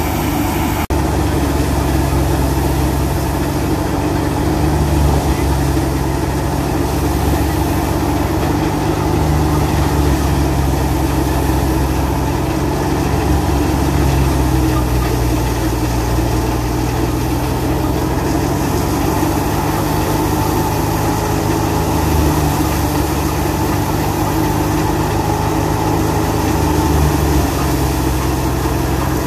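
New Holland Dabung 85 hp tractor engine running steadily under load, driving a wheat thresher through its PTO shaft, with the thresher drum running along with it.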